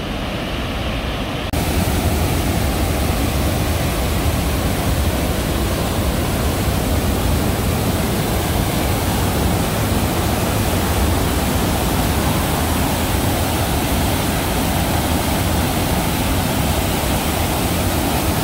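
Housatonic River in high flow pouring over a dam and down rocky falls: a loud, steady rushing of whitewater that steps up louder about a second and a half in.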